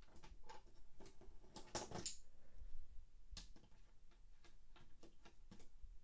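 Light clicks and taps of die-cast toy cars being handled and set into the lanes and starting gate of a plastic Hot Wheels track, the loudest cluster about two seconds in.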